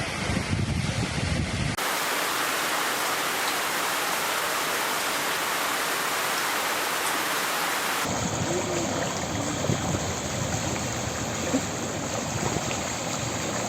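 Steady rushing noise of heavy rain and floodwater. It changes abruptly twice: a heavy low rumble at first, then an even hiss for several seconds, then a fuller wash of noise.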